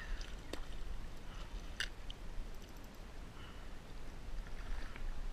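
Kayak paddle strokes: the blade dipping and splashing in the water with dripping, and a couple of sharp clicks, about half a second and two seconds in, from the paddle and gear knocking.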